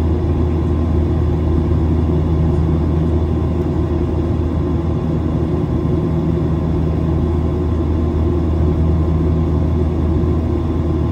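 Steady low drone of an airliner's jet engines and rushing air, heard from inside the passenger cabin during the climb after takeoff.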